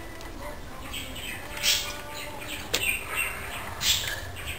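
Several short, high chirps from small birds, with one sharp click about halfway through.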